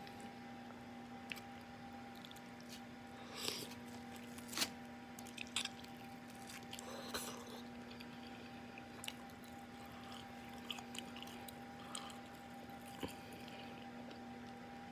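Close-miked mouth sounds of a person eating fufu and egusi soup: soft chewing with scattered wet smacks and clicks, the loudest between about three and a half and five and a half seconds in, over a faint steady hum.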